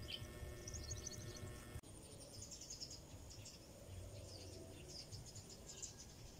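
Faint outdoor ambience with birds chirping in short, high clusters over a low background rumble, with a brief dropout about two seconds in.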